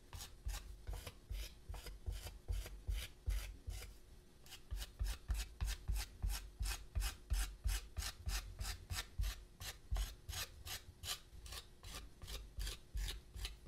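Metal rib scraping dried underglaze off the carved surface of a clay vase in quick back-and-forth strokes, several a second: the excess underglaze being removed to reveal the inlaid lines.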